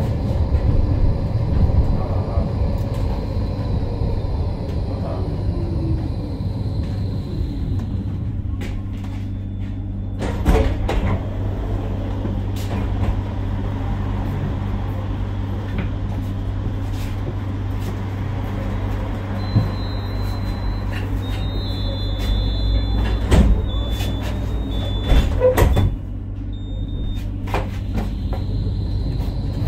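Electric tram braking into a stop, its traction motor whine falling away, then standing with a steady low hum. Its doors clunk, a series of short high beeps sounds as they close, and near the end the motor whine rises again as the tram pulls away.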